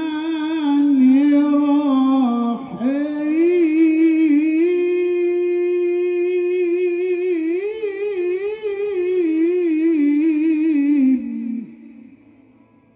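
A man's solo voice reciting the Qur'an in the melodic tilawah style through a microphone, holding long, ornamented notes with wavering pitch in one unbroken phrase. The voice stops about 11.5 s in and the sound dies away.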